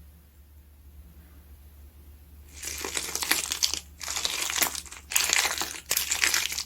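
Slime being squeezed and worked by hand, making a crackly, crinkly noise. It starts after a quiet pause and comes in several bursts with short breaks between them.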